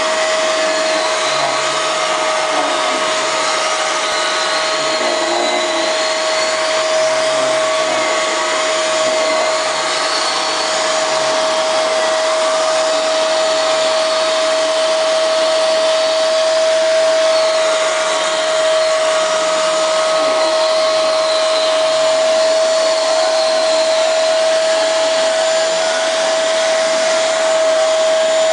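Vacuum cleaner running steadily, with a strong even whine over the rush of air, as its upholstery nozzle is drawn over a cat's fur. Faint wavering in the higher airflow noise comes and goes as the nozzle moves.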